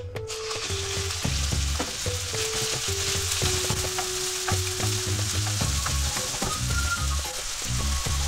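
Strips of raw chicken thigh sizzling in hot oil in a non-stick wok, stirred with a wooden spatula. The sizzle sets in as the meat hits the pan and then holds steady. Background music plays underneath.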